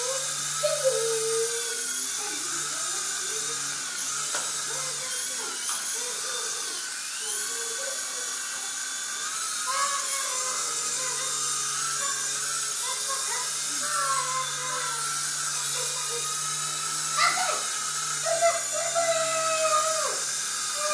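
Small helicopter flying, its motor and rotor giving a steady high whine that wavers slightly in pitch.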